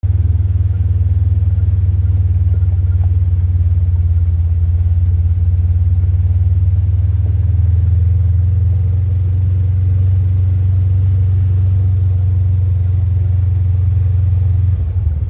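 Vehicle driving on a dirt road, heard from inside the cab: a loud, steady low rumble of engine and tyres that eases slightly near the end.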